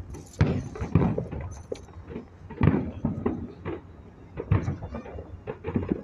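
Fireworks going off, an irregular run of bangs and pops, the loudest about half a second, one second and nearly three seconds in.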